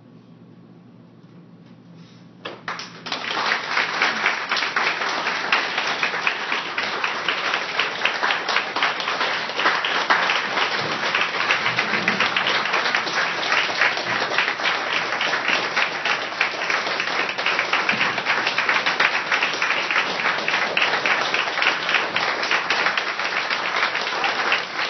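Audience applauding, breaking out suddenly about two and a half seconds in after a quiet moment and then going on as steady, dense clapping.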